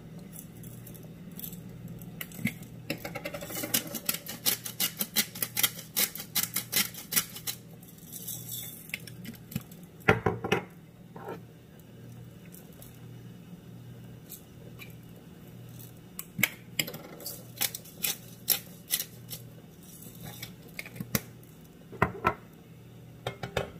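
Twist-top salt and pepper grinders being turned by hand, giving runs of rapid grinding clicks in two spells, with one louder knock about ten seconds in.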